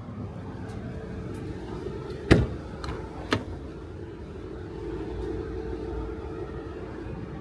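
An Audi A4's rear door being opened: one sharp clunk about two seconds in, then two lighter clicks a second later, over a steady low hum.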